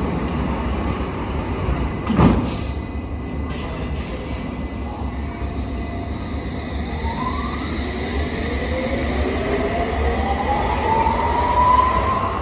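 London Underground S7 Stock train at a platform: a single loud thud about two seconds in as the doors shut, then the train pulls away with its traction motors giving a whine that rises steadily in pitch as it gathers speed.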